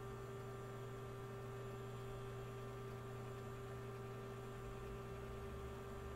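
A steady electrical hum made of several constant tones, unchanging throughout, with no other sounds.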